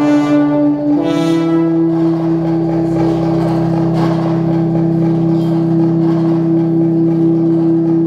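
Music: a sustained synthesizer chord of long, steady held tones that shifts to a new chord about a second in and then holds unchanged.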